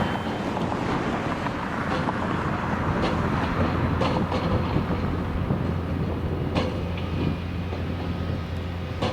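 Heavy construction crane running, a steady low engine drone with a few sharp metallic clanks as it creeps slowly into position.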